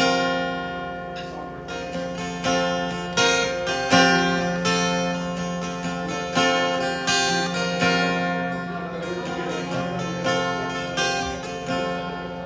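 Acoustic guitar playing an instrumental intro, with picked chords ringing out and a new one struck about once a second.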